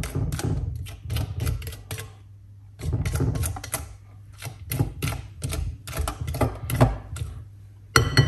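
A mixing utensil clattering rapidly against a bowl in several bursts of fast clicks as creamed butter, brown sugar and egg are beaten together. A ringing clink sounds against the bowl near the end.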